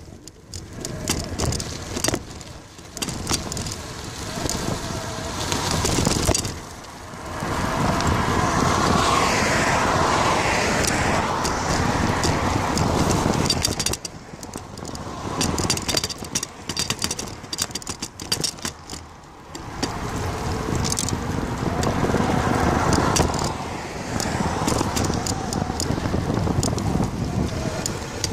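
Cars passing on the road alongside, their tyre and engine noise swelling twice: once about a quarter of the way in and again about two-thirds through.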